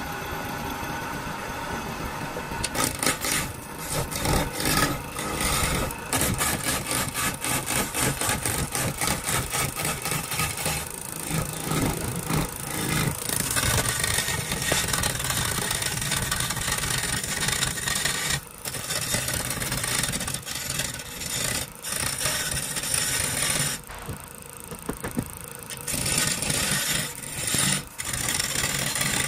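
Hand-held turning gouge cutting into a wooden baluster blank spinning on a wood lathe: a continuous, rapid chattering rasp as the wood is roughed down and shavings fly. The cut eases off briefly twice, near the middle and about three quarters of the way through.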